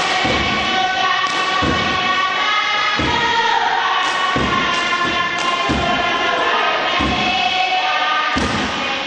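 Group of voices chanting a Pacific Island dance song in unison, over a steady thumping beat about every 0.7 seconds that keeps time for the dancers.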